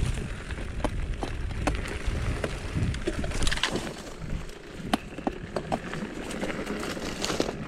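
Mountain bike riding over a rough, stony trail: wind rumbling on the microphone, with many sharp clicks and rattles from stones and the bike.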